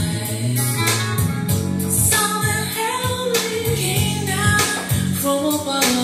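Music played through a 12-volt car audio demonstration system tuned with a Mapletech DSP: a slow song with singing over guitar and a steady bass line.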